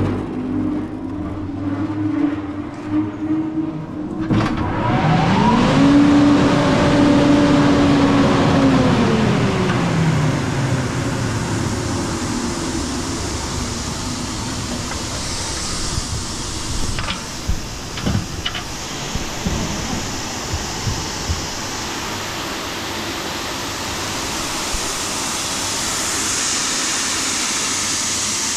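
Opico grain dryer starting up on its belt-driven electric motor: a loud, steady mechanical running begins about four seconds in, with a tone that rises, holds and then falls away over the next few seconds. A few knocks come midway, and near the end a hiss grows as dry grain pours from the elevator chute onto the heap in the store.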